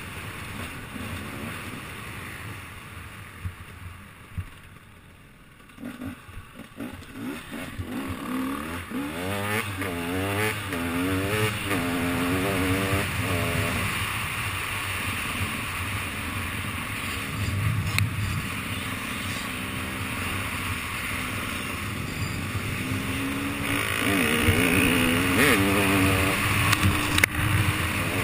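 Enduro motorcycle engine heard from the rider's helmet camera, with wind rushing over the microphone. The engine goes quiet when the throttle is closed about five seconds in, then its pitch climbs and drops again and again as the rider accelerates through the gears, with more hard acceleration near the end.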